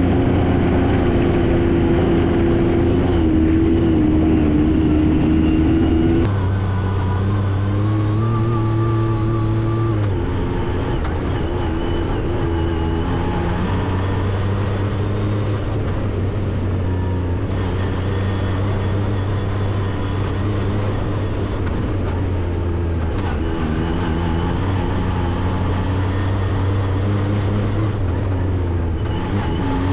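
Can-Am Maverick X3 side-by-side's turbocharged three-cylinder engine running while driving, holding a fairly steady note that jumps abruptly to a different pitch several times where shots are cut together.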